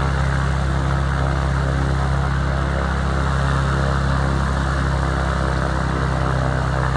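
Light propeller airplane's piston engine running steadily, a constant low hum with propeller noise.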